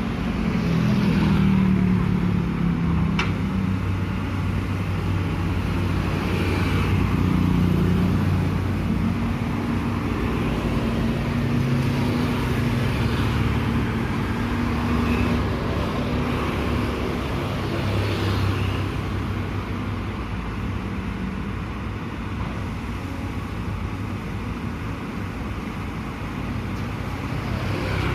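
Excavator engine running steadily, its note rising and falling a little as the machine works, with a sharp click about three seconds in.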